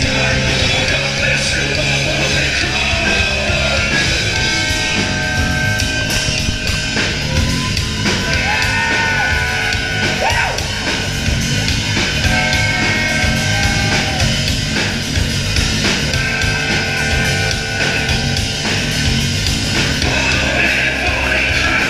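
Live rock band playing through the club PA: electric guitar, drums and bass, with the vocalist yelling and singing into a handheld microphone.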